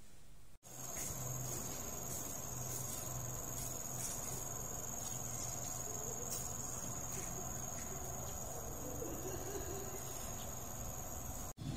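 Outdoor insects chirring in a steady, high-pitched drone that starts about half a second in, with a faint low hum underneath.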